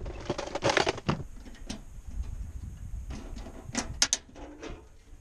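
Hollow plastic knocks and clicks of a portable two-burner camping stove being handled and set down on a boat deck, a cluster of them in the first second and another about four seconds in.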